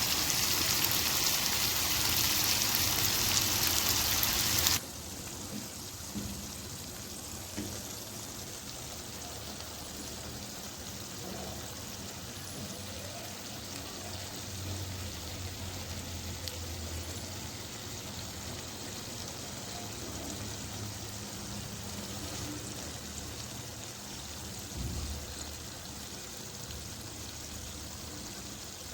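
Vegetables sizzling in hot oil in a pan: a loud steady sizzle that drops abruptly to a quieter one about five seconds in, with a few faint clicks.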